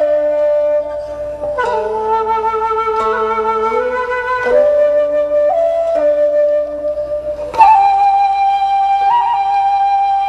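Background music: a flute-like melody of long held notes over a softer lower accompaniment, growing louder as a new note enters about three quarters of the way through.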